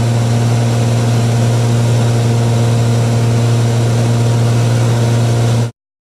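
Cessna 210's piston engine and propeller droning steadily, heard inside the cockpit. The sound cuts off abruptly near the end.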